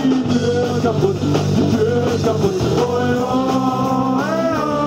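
Rock song with singing: long held, gliding sung notes over a steady bass line.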